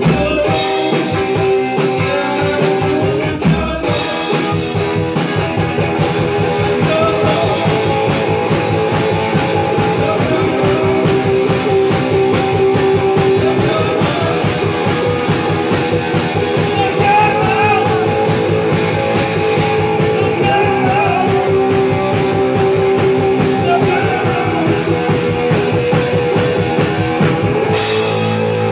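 Live rock band playing loud: electric guitar over a drum kit.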